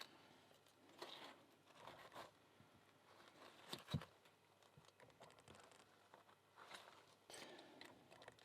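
Faint handling sounds: rubber drysuit gloves rubbing and small metal tools clicking against a padlock while prying off its C-ring retaining clip, with one sharper click about four seconds in.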